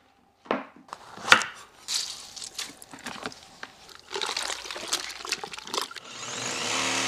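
Water splashing and sloshing as a rabbit carcass is dunked in a bucket of water and the marinade liquid is stirred. Near the end, a small cordless electric saw starts and runs with a steady motor hum as it cuts into a pumpkin, growing louder as it bites in.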